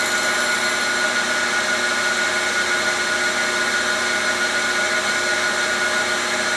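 Grinding wheel running at a steady speed, a constant whine with several fixed tones over a hiss, as it grinds a roughed-out steel part down to size in quarter-thou passes.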